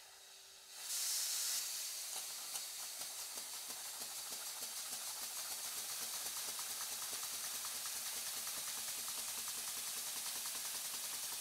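Stuart Models model beam engine starting up on steam: a loud hiss about a second in as the steam comes through, then steady hissing with fast, even exhaust beats as the engine runs.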